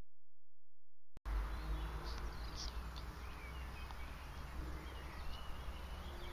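Outdoor ambience that starts suddenly about a second in: a steady low rumble with birds chirping now and then.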